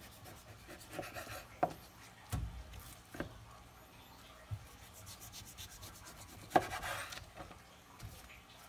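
A long chef's knife saws through a thick dry-aged beef rib roast, the blade rasping as it is drawn back and forth. It knocks sharply on the bamboo cutting board a few times, and the loudest knock comes about two-thirds of the way in.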